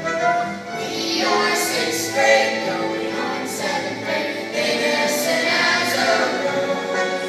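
A group of children singing a song together on stage, their voices amplified through microphones.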